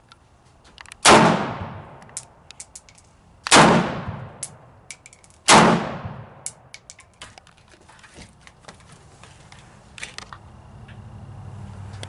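Three single shots from a 7.62x39 Romanian Mini Draco AK pistol, about two seconds apart, each with a reverberating tail, with fainter sharp clicks in between. A low steady hum comes in near the end.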